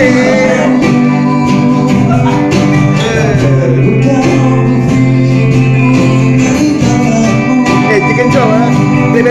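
Live acoustic band: a man singing over strummed acoustic guitars, with a tambourine jingling in a steady beat.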